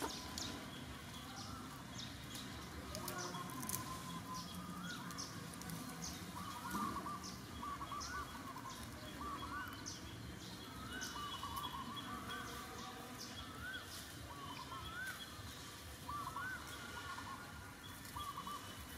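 Short rising-and-falling whistled calls repeated over and over, about one or two a second, with faint scattered ticks above them.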